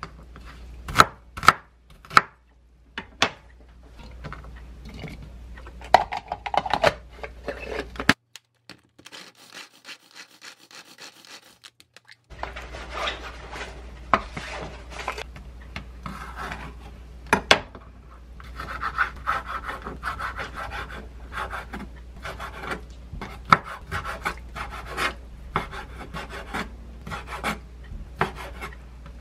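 A chef's knife chopping carrot on a wooden cutting board, with a quick run of sharp knocks. After a short near-quiet gap, there is a long stretch of rubbing and scraping on the board with scattered knocks, as minced vegetables are handled and a knife slices raw squid.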